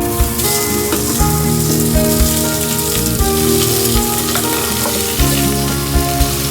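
Food sizzling as it fries in a pan, starting suddenly and going on steadily while it is stirred, with occasional light knocks.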